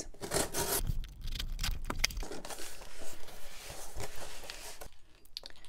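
Cardboard shipping box being opened by hand, its taped flaps pulled up and folded back: irregular rustling and scraping of cardboard with a run of sharp snaps in the first couple of seconds, softer afterwards.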